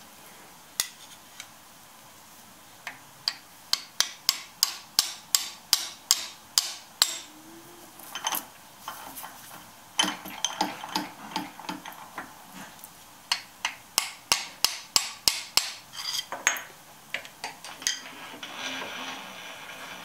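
Light metal-on-metal taps on a hardened lathe chuck jaw clamped in a machine vise, knocking it over a little at a time to bring it level under a dial indicator. There are two runs of sharp taps: a quick steady series of about three a second a few seconds in, then a longer, less even series from about halfway.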